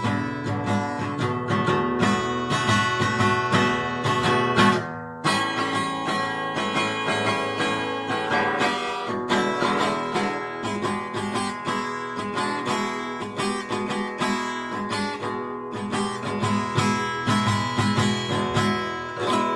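Acoustic guitar being strummed and picked in a bluesy rhythm, with a short break about five seconds in.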